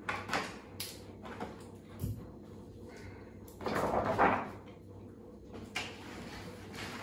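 A large printed mat sheet rustling and crackling as it is handled and worked to size by hand, with a few light taps and a low thump in the first two seconds. A louder, longer rustle comes about three and a half seconds in.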